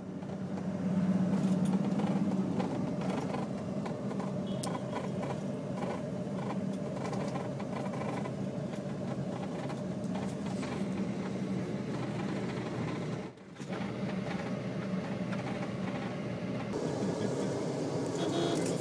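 A vehicle running steadily, a continuous low mechanical drone with a short drop-out about two-thirds of the way through.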